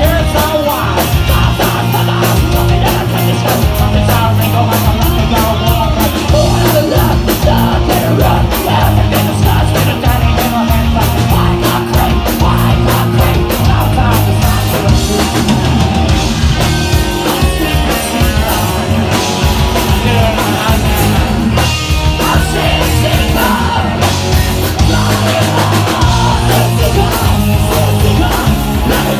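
Live rock band playing loud: a singer shouting and singing into a microphone over bass guitar, electric guitar and drums.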